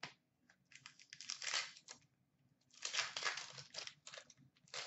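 Hockey trading cards being handled and shuffled by hand: three bursts of papery rustling and crinkling, the middle one the longest.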